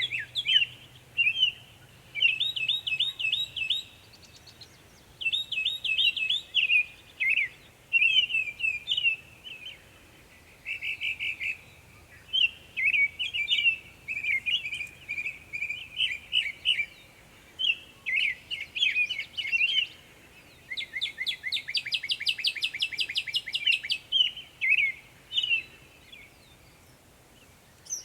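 Northern mockingbird singing: a long run of varied phrases, each repeated several times before switching to the next, including a fast rattling series of rapid notes near the end.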